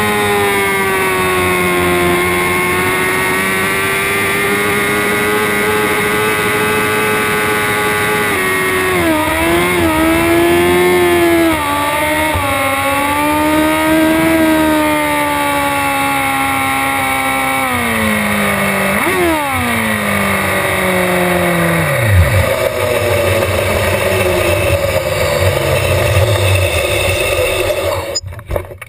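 Moto2 bike's Honda CBR600RR inline-four running at steady low revs, then rising and falling with the throttle and one quick blip. It winds down and stops about two-thirds of the way through, and a rushing noise goes on after it.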